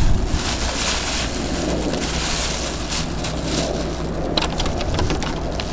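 Stray cats crunching dry kibble off newspaper, with scattered short crackles over a steady low rumble.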